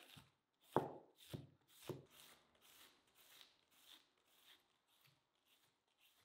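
Large kitchen knife shredding a head of white cabbage, slicing thin strips off the head in crisp, crunching strokes about two a second. The first few strokes are the loudest; the rest are lighter.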